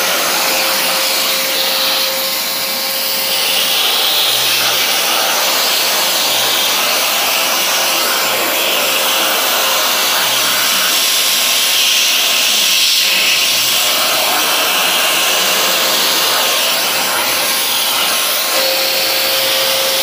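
Prestige Typhoon 05 1200-watt wet and dry vacuum cleaner running steadily, its nozzle sucking at a cushion.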